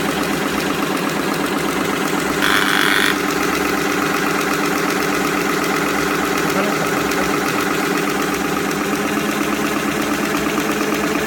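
Straw packing machine running steadily: a continuous mechanical hum with a fast, even chatter. About two and a half seconds in comes a brief, louder, higher-pitched hiss lasting under a second.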